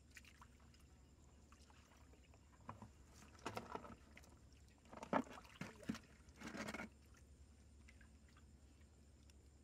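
Water and mud scooped and sloshed with a plastic bucket inside a concrete culvert pipe, in a few short bursts in the middle, the loudest about five seconds in; otherwise faint background.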